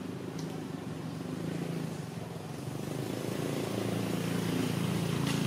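A motor engine running with a low, steady hum, growing gradually louder.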